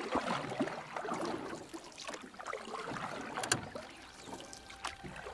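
Small waves lapping at the lake shore, making irregular little splashes and clicks, with one sharper click about three and a half seconds in.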